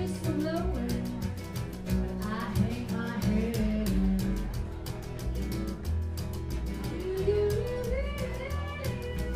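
A small country band playing live: strummed acoustic guitar and plucked upright double bass over a steady, brisk percussion beat.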